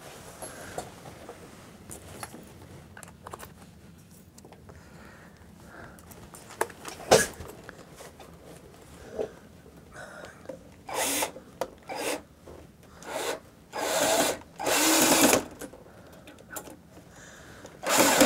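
Cordless drill run in a series of short trigger bursts, starting about ten seconds in, driving a screw into a wooden shelf support.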